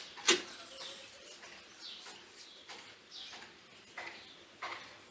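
Small bird chirping repeatedly, short calls sliding downward in pitch about once a second. A single sharp knock, the loudest sound, comes about a third of a second in.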